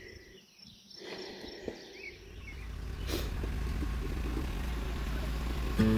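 Faint outdoor background noise with a light knock about a second and a half in and a steady low rumble building from about halfway. Acoustic guitar music comes in right at the end.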